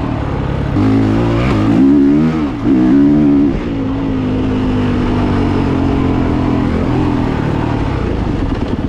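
Dirt bike engine revving up and dropping back twice, then holding a steady speed for a few seconds before falling toward an idle near the end.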